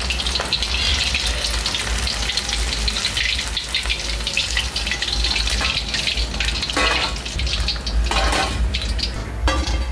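Mutton-mince kababs deep-frying in hot oil in an iron kadhai: a steady, dense crackling sizzle over a low hum.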